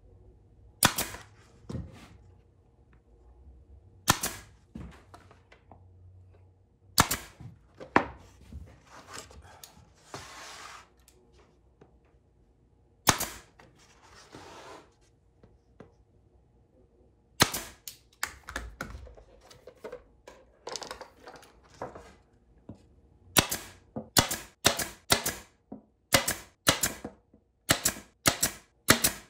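Senco pneumatic nailer firing nails into plywood as a glued ring is fastened down, each shot a sharp crack. The shots come singly a few seconds apart, then in a quick run of about two a second near the end, with a couple of short hisses between them.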